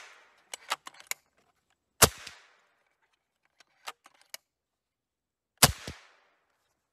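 Benjamin Bulldog .357 big-bore PCP air rifle fired twice, about three and a half seconds apart, each shot a sharp crack with a short decaying tail; it is fitted with a freshly installed depinger that cuts down the rifle's ping. A few light clicks come between the shots.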